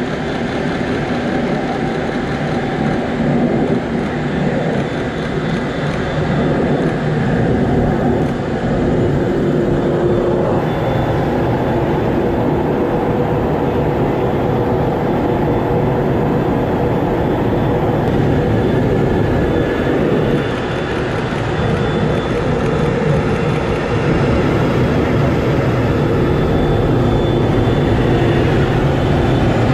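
Steady jet noise heard from inside a fighter's cockpit in flight: engine and airflow rush over the canopy, continuous and unbroken.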